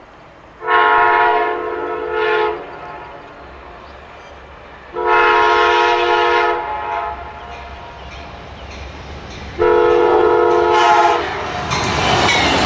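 Amtrak GE Genesis diesel locomotive sounding its multi-note air horn for a grade crossing: three long blasts, the first followed by a brief one. Near the end the train passes close by at speed, with rushing wheel and rail noise.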